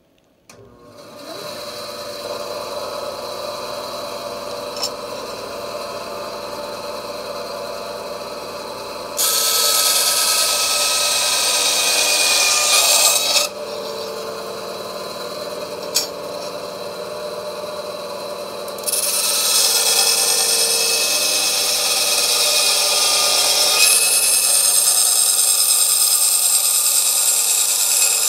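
Delta 9-inch vertical bandsaw switched on and running up to speed, then cutting through a metal DIN rail twice: each cut is a loud rasping of the blade through the rail, the first about four seconds long and the second much longer, with the saw running freely between them.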